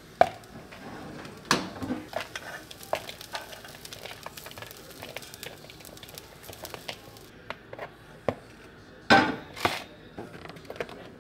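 A metal spoon scrapes and taps food out of a nonstick frying pan into a bowl, with scattered clinks of utensil on pan. Two louder knocks come about nine seconds in.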